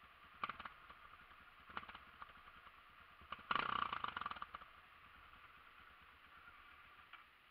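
Dirt bike riding over a rocky trail, heard muffled: rattling and clattering in short bursts, the longest and loudest about three and a half seconds in, over a steady hiss.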